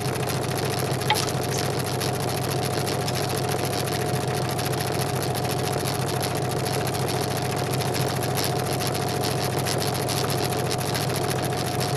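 Scroll saw running steadily, its blade cutting through a wooden board.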